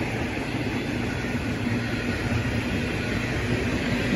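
Freight train's covered hopper wagons rolling past on the main line as the train accelerates: a steady rumble of wheels on rails with a faint steady hum, growing a little louder near the end.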